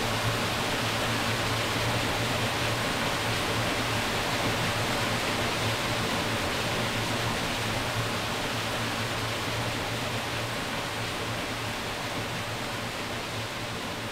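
Steady rush of water from a small waterfall, a dense even hiss that slowly fades toward the end.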